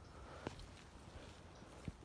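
Faint footsteps moving through dry leaf litter, with two sharp clicks, one about half a second in and another near the end.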